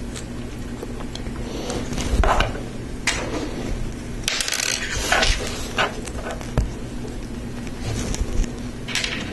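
Plastic Lego Technic pieces handled and pressed together by hand: irregular small clicks and scrapes of plastic on plastic, over a steady low hum.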